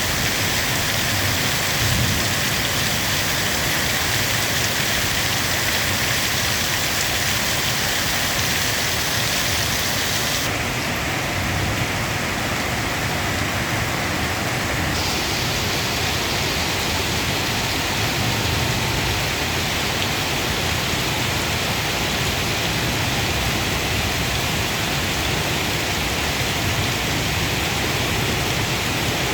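Heavy monsoon rain pouring down steadily: a dense, even hiss of rain on surfaces.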